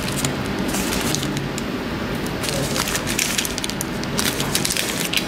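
Newspaper crinkling and crackling as it is pressed and folded over the neck of a plastic bag of sawdust mushroom substrate, with the bag's plastic rustling. The crackles get denser about halfway through. This is the paper plug being fitted over the freshly inoculated bag before it is tied with a rubber band.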